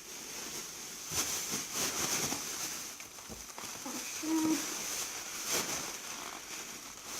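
Thin plastic bag crinkling and rustling in irregular bursts as it is handled and folded by hand.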